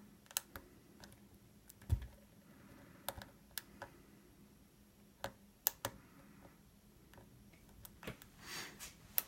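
Lock pick and tension tool working inside a 40 mm Yale padlock: scattered small metallic clicks and taps as the pins are worked, with a short scrape near the end.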